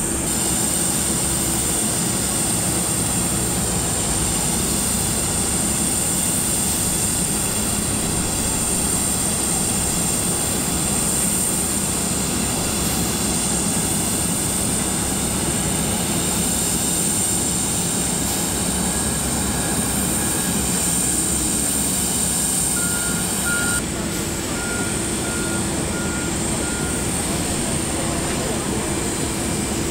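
Airport apron noise: a steady, loud high-pitched whine from a parked jet freighter and ground-handling machinery. Near the end, a ground vehicle's reversing alarm beeps about six times, evenly spaced.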